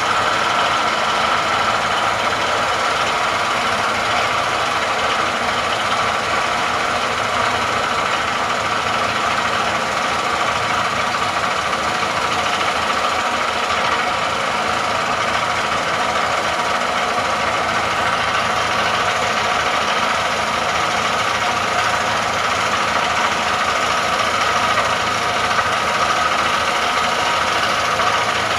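Hydraulic vibratory hammer clamped to a 1650 mm steel casing, running steadily as it vibrates the casing down into the ground. A continuous mechanical rattle and hum that holds at one level throughout.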